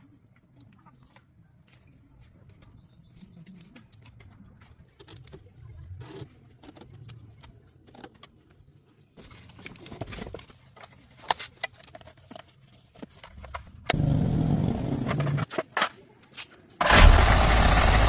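Scattered clicks and knocks of work on a car. Then a car engine is started: a brief burst of running about two-thirds through that stops, and near the end it starts again and keeps running steadily.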